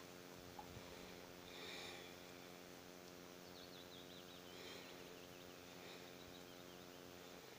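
Near silence: faint outdoor ambience with a low steady hum that cuts off near the end, and faint bird chirping around the middle.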